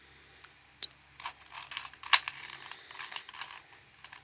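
A V-Cube 2 puzzle cube being turned quickly by hand: a run of short plastic clicks and rasps starting about a second in.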